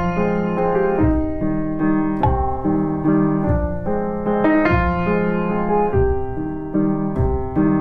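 Background piano music with a low bass line, notes changing about once a second.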